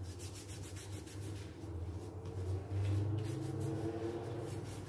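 Paintbrush bristles scrubbing black paint onto paper in a run of quick, scratchy strokes, over a steady low hum.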